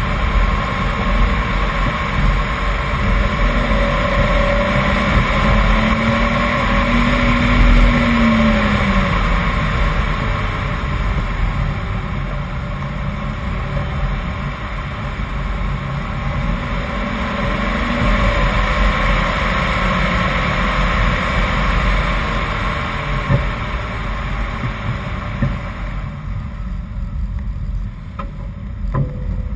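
BMW 328i's straight-six engine running hard uphill, its pitch rising and falling with the revs, over a steady rush of wind and road noise. About four seconds from the end the rush fades and the sound quietens as the car eases off.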